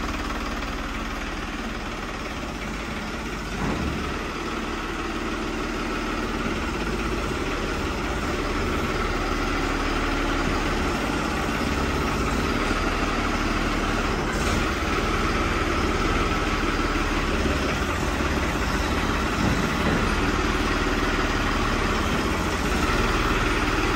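Tractor diesel engine running steadily at low speed, getting a little louder over the second half.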